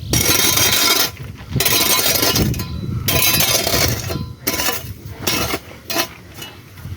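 Rough scraping and rubbing strokes: three long ones of about a second each, then several shorter, more broken ones.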